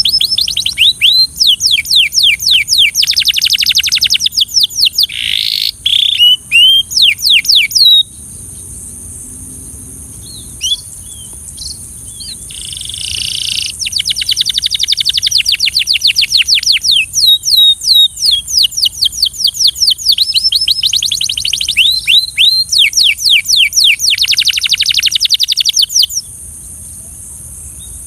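Belgian canary singing: long fast trills of rapid down-sweeping notes, breaking off for several seconds about a third of the way in and stopping shortly before the end, over a steady high hiss.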